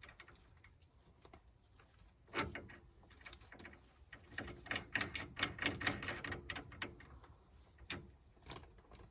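Light metal clicks and clinks of washers and a mounting bolt being handled and fitted on a car's strut rod, with a sharp clack about two seconds in and a quick run of clicking in the middle.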